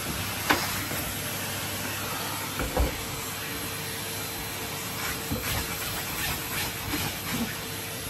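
Henry cylinder vacuum cleaner running steadily, its suction a continuous hiss, with a sharp knock about half a second in and a thump near three seconds as the dust brush tool bumps along the bed base. A faint steady whine joins about three seconds in.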